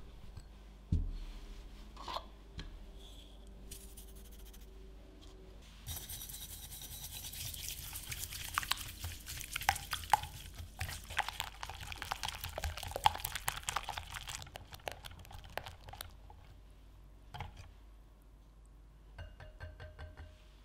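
Metal wire whisk beating egg and brown sugar in a glass bowl: rapid whisking with the wires clattering on the glass for about eight seconds in the middle. Scattered clicks and a thump come before it, and a few quick taps near the end.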